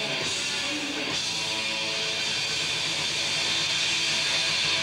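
Electric guitar solo played live through an amplifier: a line of held notes moving from pitch to pitch.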